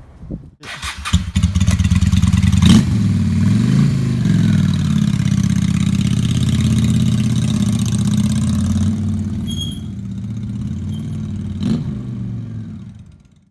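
Motorcycle engine starting about a second in and revving, with a sharp click a few seconds in, then running steadily and rising and falling in pitch as it pulls away. It gets quieter after about nine seconds and dies away at the end.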